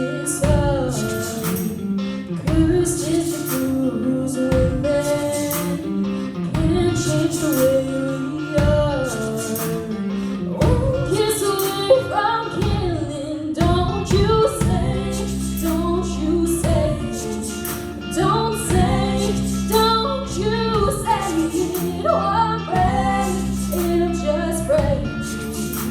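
A woman singing a song with guitar accompaniment.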